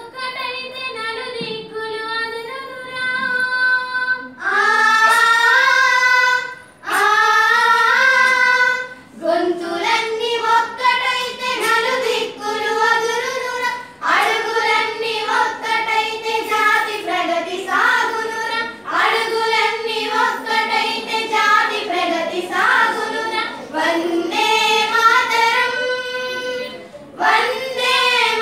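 A group of girls singing a song together, in phrases with a couple of short breaks between them.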